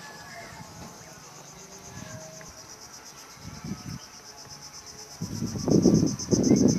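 Steady high-pitched chirring of insects, a rapidly pulsing drone that carries on throughout. About five seconds in, loud irregular bursts of low rumbling noise come in over it.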